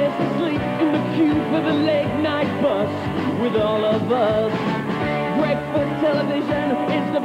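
A pop song playing: a singing voice over a full band backing.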